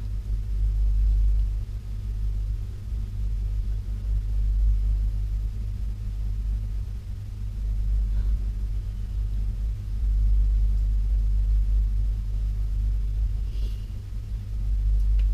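A steady low rumble with a faint hum throughout, rising and falling a little in loudness.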